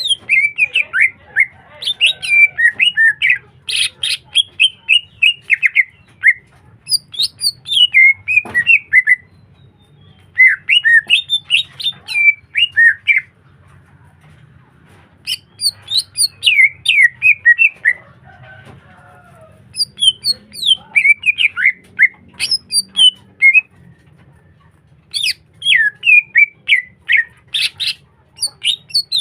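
Greater green leafbird (cucak hijau) in full song: bursts of rapid, chattering chirps and whistled notes a few seconds long, broken by short pauses.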